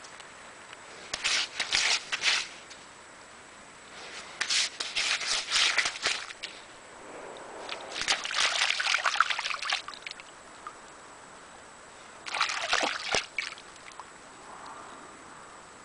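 A Curly Coated Retriever digging with its front paws in wet sand and shallow water, scraping and sloshing in four quick bursts of rapid strokes with short pauses between them.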